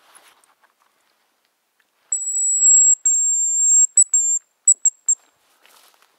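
Hazel grouse decoy whistle blown close by: two long, very high thin whistles, then a few short clipped notes, imitating the hazel grouse's call to lure a bird in.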